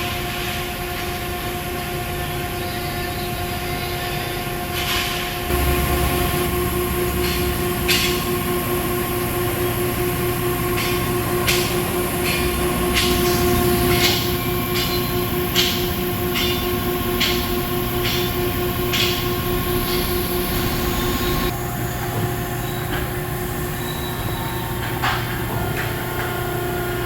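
Hydraulic power unit of a 1999 Gasparini 165-ton CNC press brake running with a steady hum. From about five seconds in it gets louder and lower for a stretch, with a run of sharp clicks in the middle, then settles back to the plain hum near the end.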